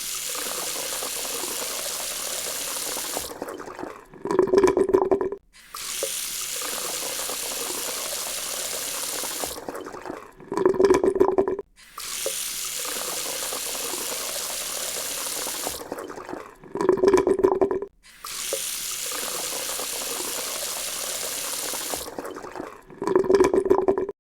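Tap water running into a sink: about four seconds of steady splashing, then a louder stretch of about a second and a half with a low pitched tone. The pattern repeats four times at even spacing, as a loop.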